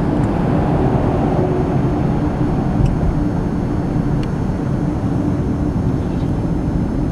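Steady road and engine noise of a car driving on an expressway, heard from inside the cabin.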